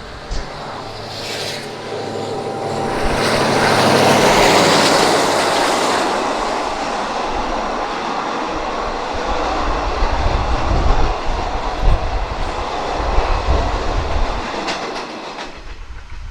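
Diesel-hauled long-distance passenger train passing close by. It swells to its loudest about four seconds in, then the coaches run by with a heavy low rumble and irregular wheel clicks over the rail joints, fading near the end.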